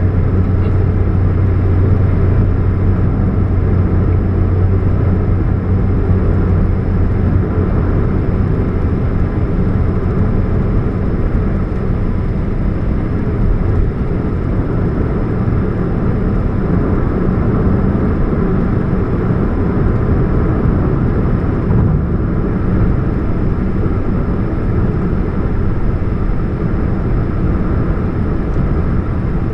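A 2013 Chevrolet Spark running with a steady low hum, loudest in the first few seconds. The owner puts the hum down to a leaking catalytic converter.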